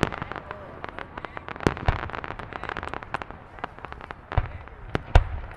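Fireworks display: a rapid run of crackling cracks, with heavy booms of shells bursting about a second and a half in, near the end, and once more just before it.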